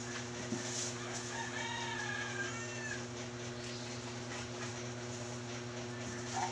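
A rooster crowing once, a single call of about a second and a half, over a steady low hum.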